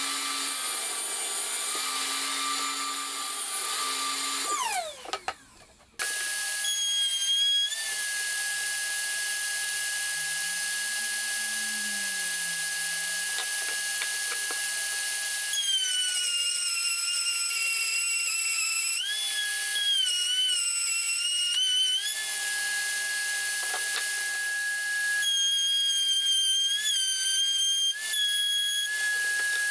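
Metabo table saw running, then switched off and winding down with a falling pitch about five seconds in. After a short gap a router in a router table runs with a steady high whine, its pitch sagging several times as it is loaded cutting a groove in a board.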